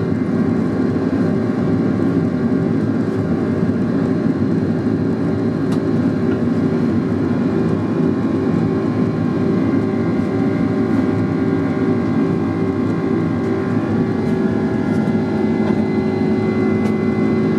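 Cabin noise inside a Boeing 767-400 climbing just after takeoff: the twin turbofan engines at climb power give a steady roar with a hum of several steady tones.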